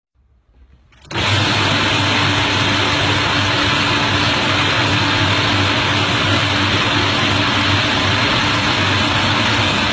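Fish cleaning machine running, coming in abruptly about a second in: a steady low motor hum and a constant higher tone under a loud, even hiss that does not change.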